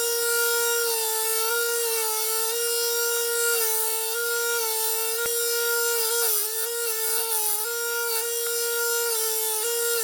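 Power tool motor running with a steady whine and a rubbing hiss as a knife blade is worked against an abrasive. The pitch dips and wavers slightly past the middle as the tool takes load, and there is a single sharp click about halfway.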